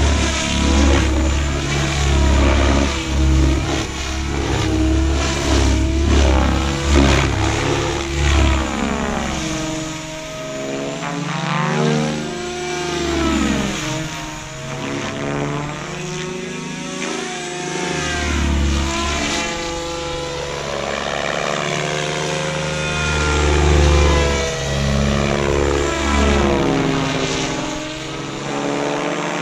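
SAB Goblin 630 electric RC helicopter flying freestyle, its main rotor at about 2,000 rpm headspeed. The rotor and motor whine sweeps up and down in pitch over and over as it manoeuvres and passes.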